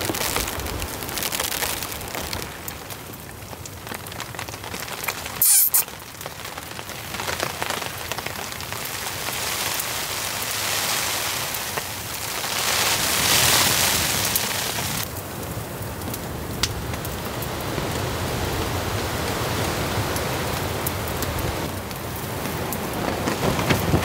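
Steady rain with gusting wind, the noise swelling and easing and loudest about halfway through. One sharp, loud crack about five seconds in.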